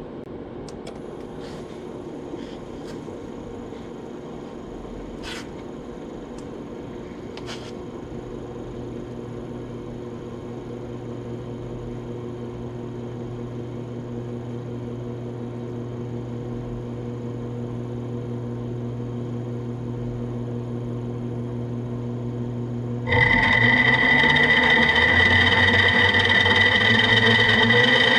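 An electric drive motor hums steadily and grows slowly louder as it is powered up, with a few faint clicks in the first several seconds. About three-quarters of the way through, the unlubricated 3D-printed PLA straight-cut spur gear train spins up and the sound jumps to a much louder, high gear whine.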